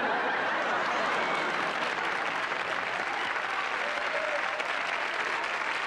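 Sitcom studio audience applauding, steady clapping that swells up just before and holds at an even level throughout.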